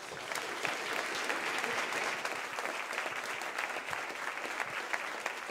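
An audience applauding steadily, many hands clapping at once.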